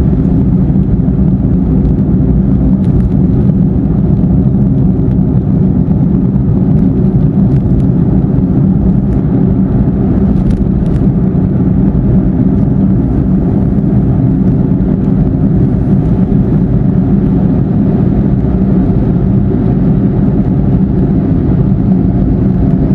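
Car driving steadily on a highway: a constant low rumble of tyre, road and engine noise heard from inside the car, with no change in pace.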